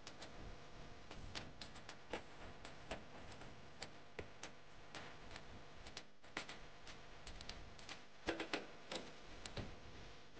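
Faint, irregular clicks and small knocks of objects being handled, with a cluster of louder knocks about eight seconds in.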